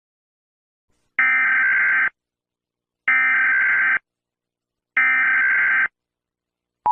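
Emergency Alert System tones: three harsh one-second squawks of digital header data, evenly spaced about two seconds apart, then the steady two-tone attention signal starts right at the end.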